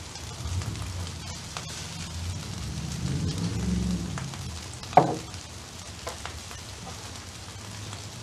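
Rice sizzling on a hot flat-top griddle, a steady hiss, with one sharp clack about five seconds in.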